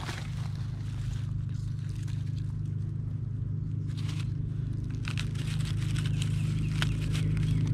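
Dry leaf litter crackling and rustling in short bursts as morel mushrooms are picked by hand from the forest floor, over a steady low rumble.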